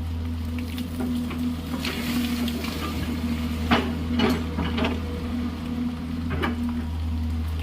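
Excavator's diesel engine running steadily while it works, with a series of sharp metallic clanks and knocks over it, the loudest a little under four seconds in.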